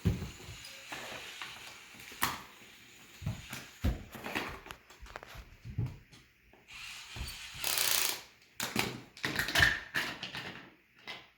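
Plastic toy-kit parts and small screws being handled: scattered clicks, knocks and rattles with some rustling, as pieces of a screw-together dinosaur model are fitted and screwed.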